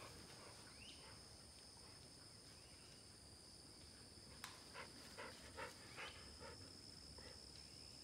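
Faint, distant barking of hunting dogs: a quick run of about five barks around the middle, over a steady high-pitched insect drone.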